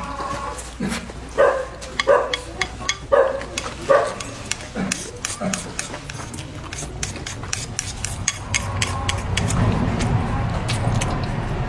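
A dog barking in short repeated barks through the first half, over close, wet chewing and mouth clicks that carry on to the end.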